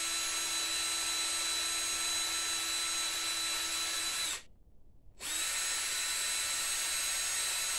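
Cordless drill spinning a wire brush to clean crud off ATV battery terminals, running at a steady speed with a constant whine. It runs for about four seconds, stops briefly, then runs again.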